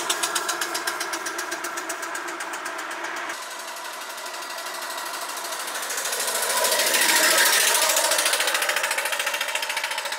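Homemade steam motorcycle's steam engine chuffing in a fast, even rhythm as it rides along. It grows louder around the middle and fades away near the end.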